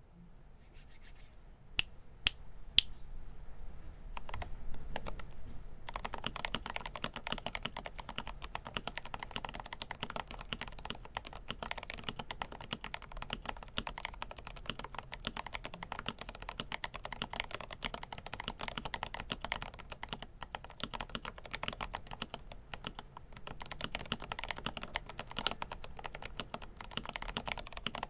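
GMMK Pro mechanical keyboard with lubed Huano Holy Tom tactile switches being typed on: a few separate keystrokes at first, then steady fast typing from about six seconds in.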